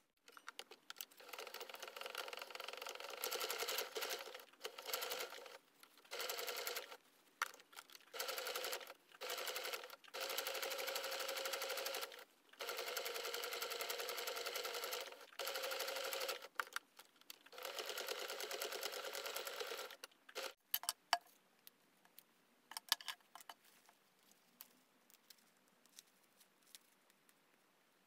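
Electric domestic sewing machine stitching in about eight stop-start runs, each lasting one to three seconds. It stops for good about twenty seconds in, leaving only a few faint clicks.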